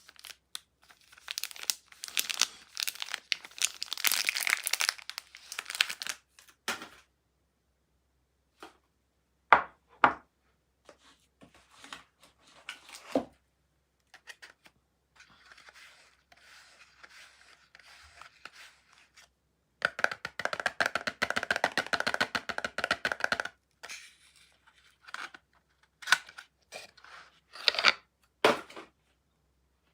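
Soap packaging being torn open and crinkled: two long spells of dense crackly tearing, with softer rustling between them and scattered sharp taps and clicks.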